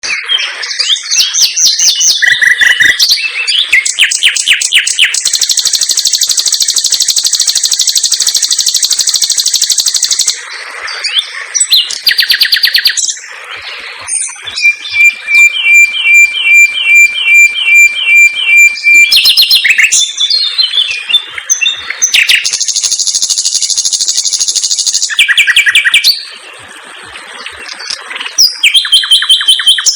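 Common nightingale singing a varied, loud song of fast trills and long buzzing rattles, with a run of about ten sharp repeated notes, roughly two a second, in the middle.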